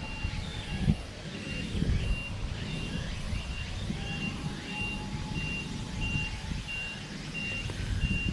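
Electronic reversing alarm beeping steadily at one high pitch, about two beeps a second, over a low rumble.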